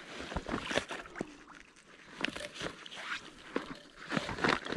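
Irregular rustling and knocks from a freshly weighed carp and its handling gear on the bank, the loudest cluster near the end.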